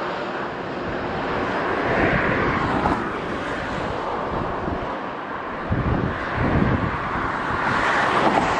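Embraer E170's two GE CF34-8E turbofans running on final approach, a steady jet roar that swells twice as the airliner draws closer. Wind buffets the microphone in gusts about six to seven seconds in.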